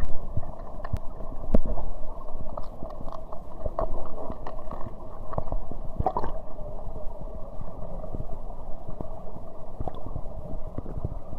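Steady rush of waterfall water, dull-sounding with little high sound, with scattered small clicks throughout.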